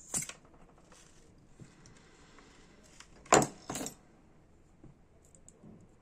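Small metal objects handled and set down on a workbench: a click at the start, then two sharp metallic clacks about half a second apart a little past three seconds in, with faint ticks after.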